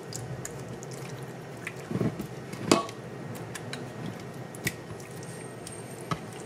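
Hands rubbing and squeezing raw fish fillets coated in wet seasoning: soft wet squelches and small clicks, with a louder smack a little under three seconds in.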